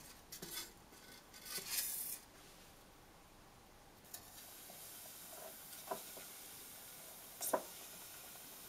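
Polystyrene foam and metal tongs handled against a small glass beaker: two short rustling scrapes in the first two seconds as a foam strip goes into the beaker, then a few light clicks and taps.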